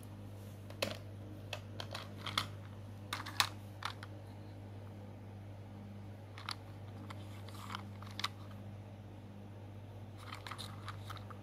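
Hard plastic toy vehicles handled in the hands, giving irregular light clicks and taps, several close together near the start and again near the end, over a steady low hum.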